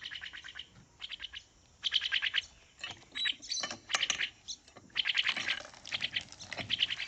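Pet crested mynas calling in repeated bursts of quick chirping notes, several short runs with brief pauses between them.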